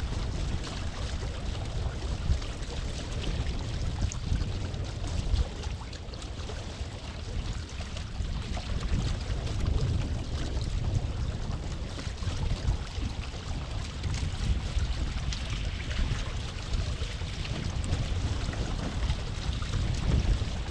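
Wind buffeting the microphone over water rushing and splashing along the hull of a small sailboat under way.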